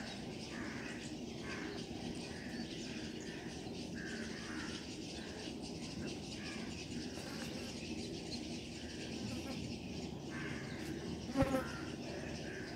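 Insects chirring steadily in the background, with a single brief call about eleven seconds in.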